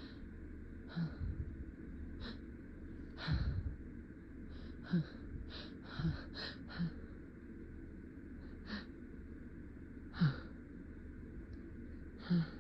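A person's breathing: a series of short, sharp sniffs and catching inhales at irregular intervals, some with a brief voiced catch, the breaths of a sneeze building that is being held back.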